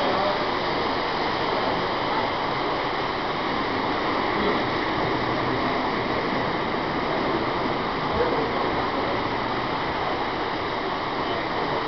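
Steady, even rushing noise of a model train layout in operation, with the trains rolling along the track.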